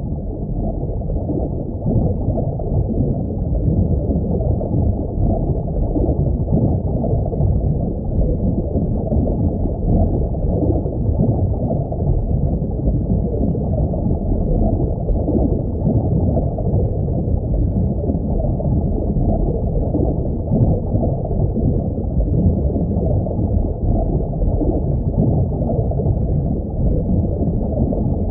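Underwater ambience sound effect: a steady, muffled, low rumble of water with nothing high-pitched in it.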